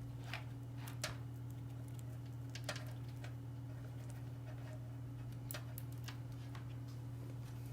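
Faint, irregular clicks and small rustles of stranded wire ends being twisted together by hand, over a steady low hum.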